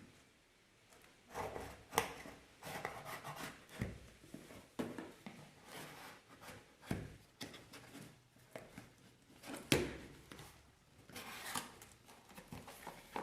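A shipping box being opened by hand: irregular scraping, rubbing and rustling of the packaging, with a few sharp snaps, the loudest about two seconds in and near ten seconds.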